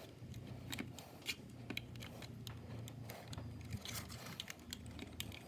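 Faint, scattered plastic clicks and scrapes as the snap tabs of a HomeLink button module's housing are pried apart, with a few sharper clicks about a second in and again later.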